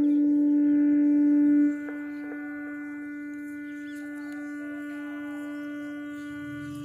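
Iftar siren sounding one long steady tone. It drops sharply in volume about a second and a half in, then holds on more quietly.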